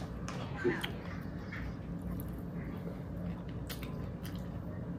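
A person eating, with chewing and small, scattered mouth clicks over a steady low room hum. One brief louder sound comes just under a second in.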